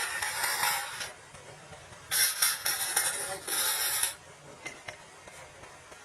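A hand tool scraping across wood in four separate strokes, each about half a second long, with short pauses between them.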